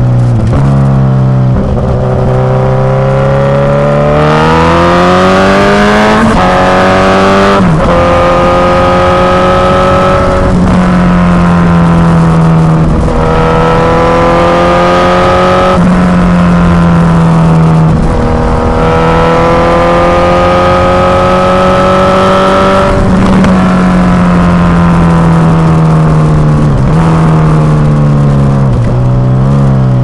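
Suzuki GSX-S1000 inline-four through an aftermarket Firetong Willy Made exhaust, heard close to the pipe while riding. The engine note climbs and drops back in steps through a run of upshifts, holds fairly level, then falls away as the bike slows, with a short rise in revs near the end.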